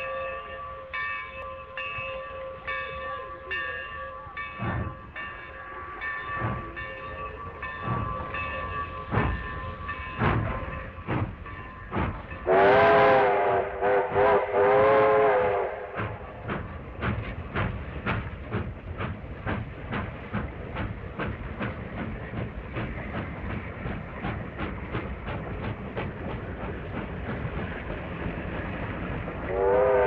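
A locomotive bell ringing steadily, about one stroke a second, fading out over the first several seconds. A train whistle then blows twice in the middle, and the moving train's fast, even rhythm of about three beats a second follows, with the whistle starting again right at the end.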